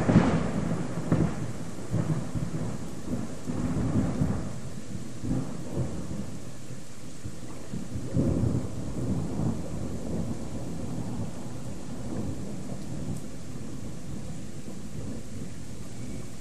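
Thunder rolling and rumbling after a close lightning strike: loudest right at the start, then swelling again around 4 and 8 seconds in and dying away. Under it is a steady hiss of heavy rain.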